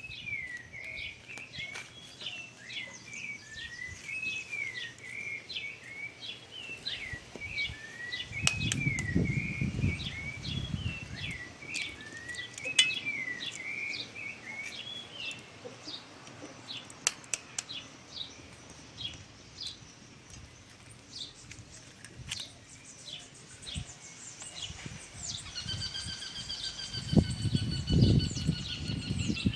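Small birds chirping over and over in quick repeated notes, with occasional sharp clicks and two low rumbles. A steady whistling tone comes in near the end.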